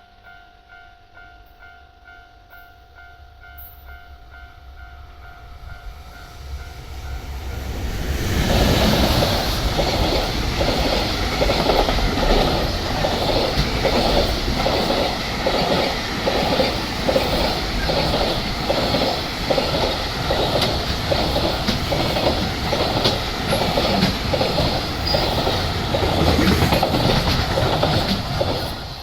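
Japanese level-crossing warning bell ringing in a steady, even clang. Then a freight train hauled by an EF210 'Momotaro' electric locomotive comes in, growing loud about eight seconds in, and passes for about twenty seconds, its wagons' wheels clattering in an even rhythm over the rail joints.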